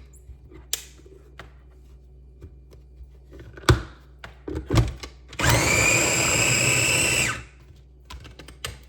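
Food processor chopping chickpeas with a little oil: a few clicks and two knocks as it is handled, then the motor runs steadily with a whine for about two seconds and stops.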